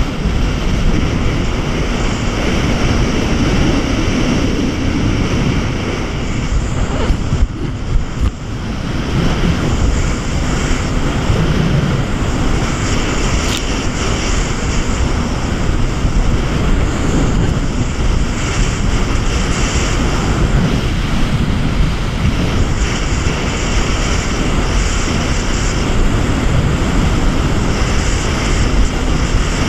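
Jet ski running at speed: a steady engine drone mixed with rushing water and spray from the wake, heavily buffeted by wind on the microphone. The noise dips briefly about eight seconds in, then carries on as before.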